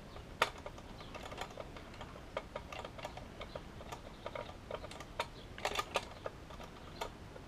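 Irregular light clicks and taps of small metal hardware: the last small screw being driven to fasten a 2.5-inch SSD into its tray in a PC case.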